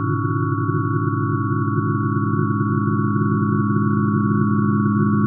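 Synthesized sound of hydrogen's atomic spectral lines, transposed down many octaves into the audible range: a steady chord of sine tones, a pair of high tones held over a dense, faintly fluttering low drone, growing slightly louder.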